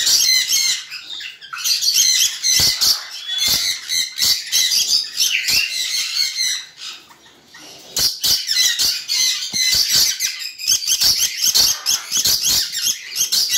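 Dusky lory calling in a rapid string of shrill chattering squawks, with a pause of about a second around the middle.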